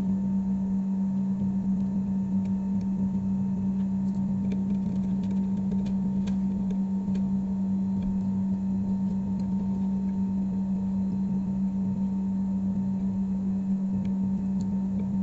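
A steady low hum at a single pitch that starts abruptly and does not change, with faint small clicks scattered over it.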